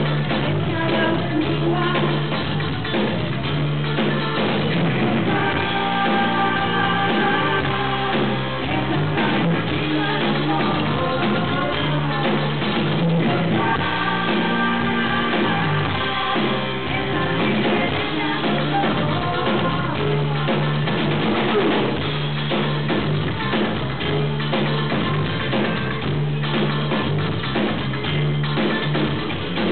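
A live band playing a song: women singing over a drum kit and electric guitar, with a steady beat and held vocal notes.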